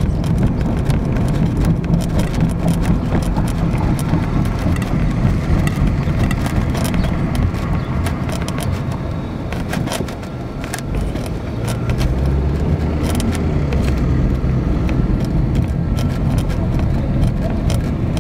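A car driving on a town street, heard from inside the car: a steady engine and road rumble with scattered short clicks and rattles. The rumble dips about ten seconds in, then builds again as the car picks up speed.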